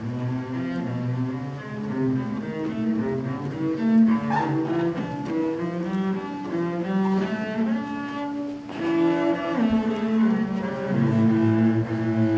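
Double bass played with a bow: a slow line of held notes, broken by a brief pause a little after the middle.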